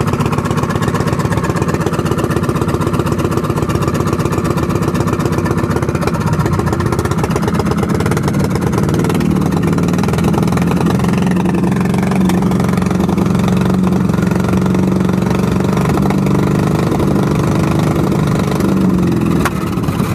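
A small boat engine on a fishing bangka running steadily at idle, its note shifting a little partway through. The engine has just been worked on for a carburettor problem and now idles smoothly.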